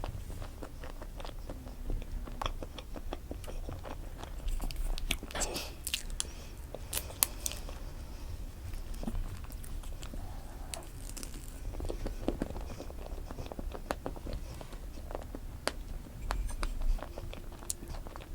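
Close-miked eating sounds: strawberry cream cake being bitten and chewed, with many small wet mouth clicks and smacks scattered through.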